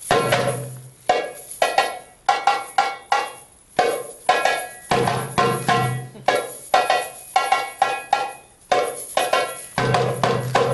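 Riq, the Arabic tambourine, played solo: quick rhythmic strokes with bright ringing jingles from its brass cymbals, and a deep dum stroke on the skin that opens a new phrase at the start, about five seconds in and near the end.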